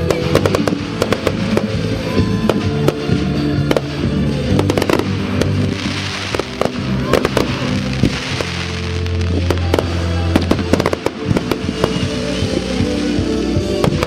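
Fireworks display: aerial shells bursting in frequent, irregular sharp bangs and crackles over loud music with a heavy bass line, played as a pyromusical soundtrack.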